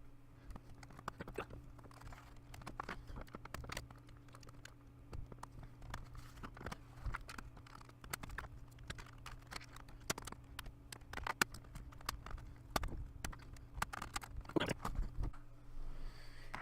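Irregular light clicks and taps of a screwdriver and fingers working on a Dell laptop's plastic casing during disassembly, over a steady low hum.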